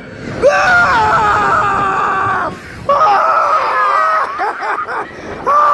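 A man and a woman screaming together as a tower thrill ride launches them: two long, held screams with a short break between, then a brief one near the end.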